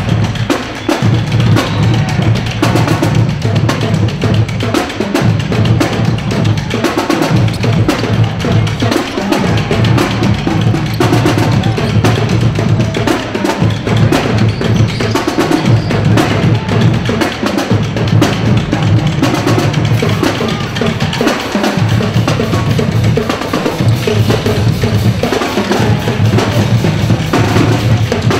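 Music with a steady, heavy drum beat and deep bass.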